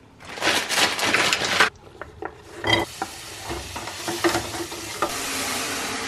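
A kitchen knife crunching through a fresh cabbage on a wooden chopping board, followed by scattered knocks of the blade on the board. About five seconds in a steady hiss starts.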